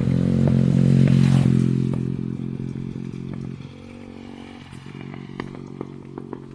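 An engine running steadily, loud at first and fading after about two seconds, with scattered light clicks and clatter.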